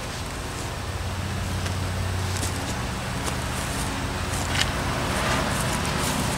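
Steady low motor drone with a few light knocks and rustles.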